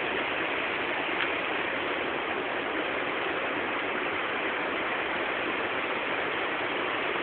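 Steady, even rushing noise with no breaks, with a faint click about a second in.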